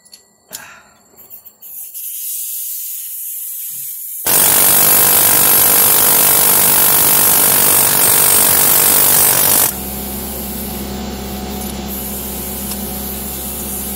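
Pneumatic air hammer with a long punch bit in the bore of a rusted rear wheel hub, running continuously and loudly for about five seconds, starting about four seconds in. A steady hiss comes before it, and a quieter steady hum follows when it stops.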